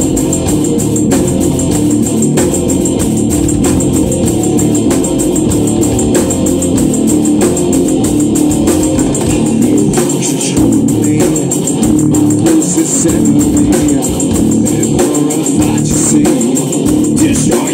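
Industrial metal band playing live and loud: electric guitar, bass guitar and drum kit, with a dense sustained organ-like layer and a slow, steady beat.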